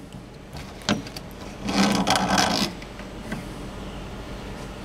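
Electric motor of a Ferrari 360 F1 gearbox pump being worked loose and pulled off the pump: a knock about a second in, then about a second of scraping and rubbing as the motor slides out.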